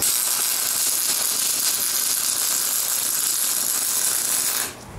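MIG welding arc running steadily on steel, a dense crackling hiss as a short weld bead is laid, cutting off suddenly near the end when the trigger is released.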